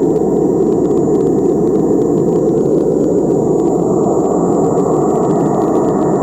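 Paredão sound wall playing a loud, steady rushing test noise during its tuning, strongest in the low mids, with a thin high whine over it; about four seconds in, the noise spreads a little higher in pitch.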